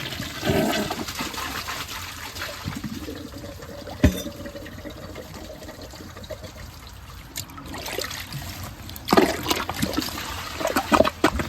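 A 2011 Glacier Bay toilet flushing on a load of water balloons and a balled-up grocery bag, a loud rush of water at first, then a steadier softer run of water with one sharp knock about four seconds in, and louder sloshing surges near the end. The load clogs the toilet.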